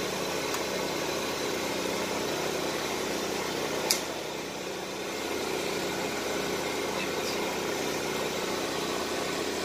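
Steady engine-like mechanical hum running in the background, with a single sharp tick about four seconds in as a pencil marks the crown molding against the saw fence.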